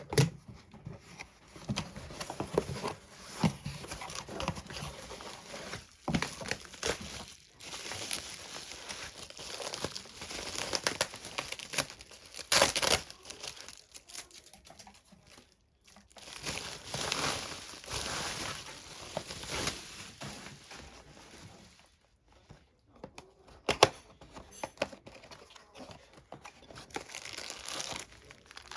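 Packaging being handled, crinkling and tearing, in irregular spells with a few sharp clicks and brief pauses: a parcel being unwrapped by hand.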